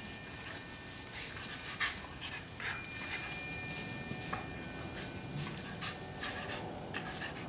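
Wind chimes ringing with repeated high tinkling notes, the loudest strikes about three and five seconds in, over the scuffling of two terriers play-fighting in the plants.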